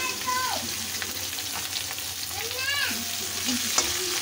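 Sliced onions sizzling in hot oil in an iron kadhai, with a few clicks and scrapes of a spatula stirring them. A short high call rises and falls in pitch about two and a half seconds in.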